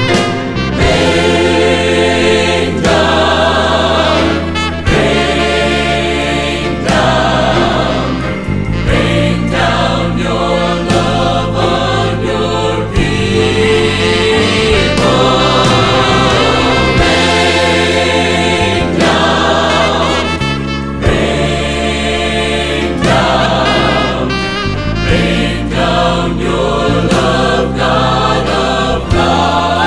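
A choir singing a hymn over a steady low accompaniment.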